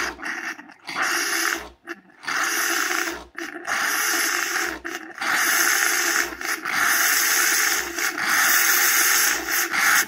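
De'Longhi Nespresso Lattissima Plus running its milk-frother clean cycle: steam and hot water blow out of the frothing nozzle into a glass mug, flushing out milk residue. It is a loud hiss in long surges broken by short sputtering gaps, and it stops near the end.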